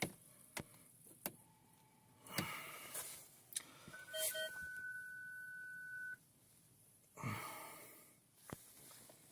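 A Land Rover Freelander 2's ignition switched on with the push-button start, engine not yet running: a few sharp clicks, then a dashboard beep and a steady electronic warning tone held for about two seconds that cuts off suddenly, while the diesel's glow plugs pre-heat. Short rustles come before and after the tone.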